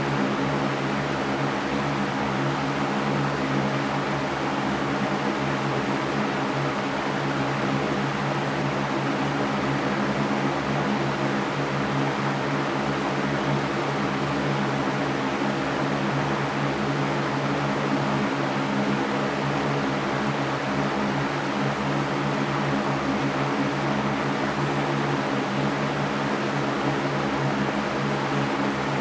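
Electric fan running steadily: an even whooshing noise with a low motor hum underneath, unchanging throughout.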